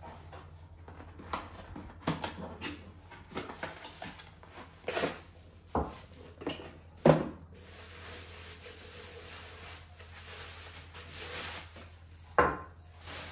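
Handling noises of artificial flowers being arranged in a vase: scattered clicks, knocks and rustling, with the sharpest knocks about seven seconds in and near the end, over a faint steady low hum.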